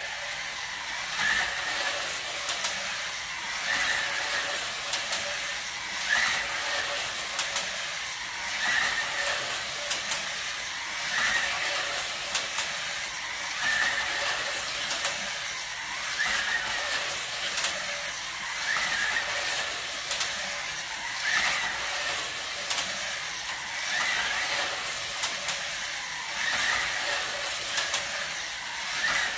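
1:43-scale Carrera GO!!! slot cars racing around a plastic track: a steady whirring hiss from their small electric motors, swelling every two to three seconds as the cars come round, with scattered clicks.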